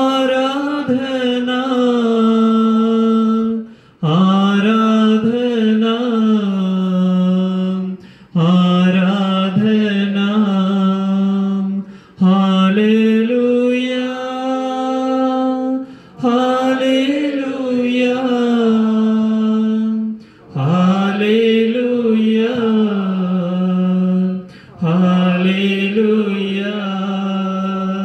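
A solo voice chanting a slow hymn in long, drawn-out phrases of about four seconds each, seven in all, with a short breath between each phrase.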